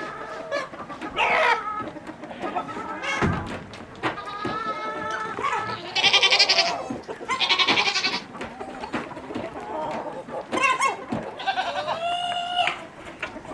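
Farm animals calling over one another: free-range chickens clucking and crowing among other livestock, with a string of separate calls and two loud harsh ones about halfway through.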